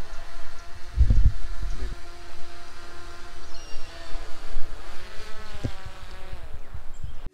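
DJI Mavic 3 drone flying close overhead, its propellers giving a steady buzzing whine that rises in pitch near the end as the motors speed up. A low thump about a second in.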